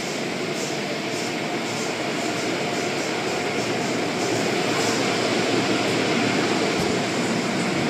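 Automatic car wash equipment running: a steady rushing noise that grows a little louder about four seconds in.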